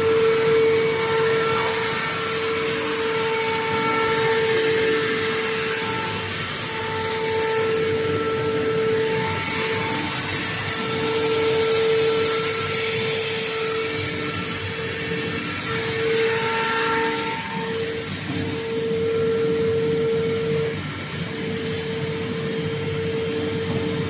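Factory machinery of a tyre-tread vulcanizing press line running: a steady electric-motor whine over a hiss, breaking off for a moment several times.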